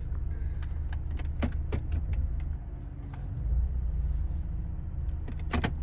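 Car engine running, heard from inside the cabin as a steady low rumble, with a few sharp clicks and taps about a second and a half in and again near the end.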